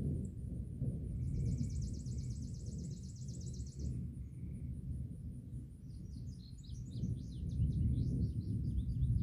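Songbirds calling over a steady low rumble that swells near the end: a rapid trill about a second in, then a run of quick chirping notes from about six seconds. A fast, high pulsing runs underneath.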